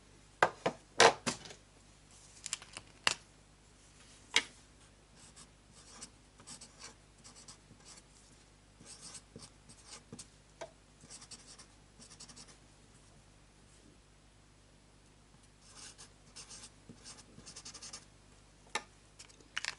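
Writing by hand on a small slip of paper: soft scratching strokes in short spells, after a few sharp clicks and knocks in the first few seconds.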